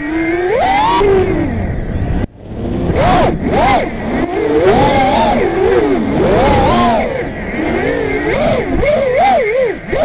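FPV quadcopter's brushless motors and propellers whining, the pitch sweeping up and down constantly with the throttle. About two seconds in the sound cuts back sharply for a moment and then climbs again.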